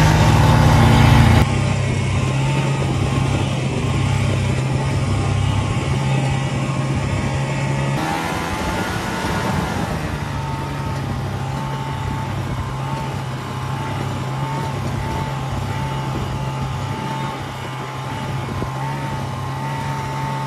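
Snowmobile engine running steadily under way, a low drone with a thin whine above it. The sound changes abruptly about a second and a half in and again about eight seconds in.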